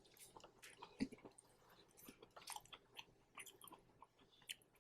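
Faint chewing of food close to the microphone: soft, irregular mouth clicks and small wet crunches, one a little louder about a second in.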